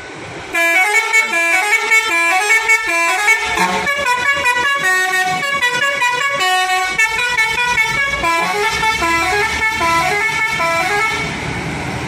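Intercity bus's telolet horn, a multi-trumpet air horn, playing a quick melody of stepped notes with several sounding together. It starts about half a second in and stops near the end.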